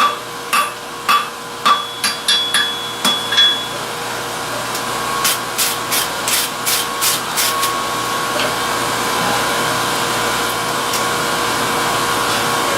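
Hand hammer striking hot steel on an anvil while the scarf of a chain-link ring is forged down, about two blows a second for the first three and a half seconds, then a quick run of lighter, ringing taps about three a second around the middle. Under it runs the steady roar of the forge, a little louder once the hammering stops.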